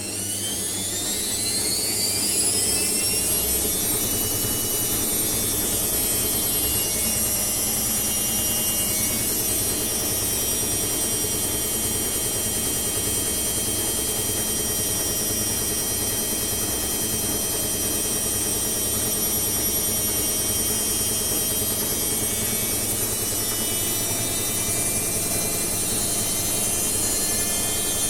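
Hotpoint washing machine spinning: the drum motor's whine climbs in pitch over the first few seconds as the drum speeds up, then holds at a steady high whine at full spin speed.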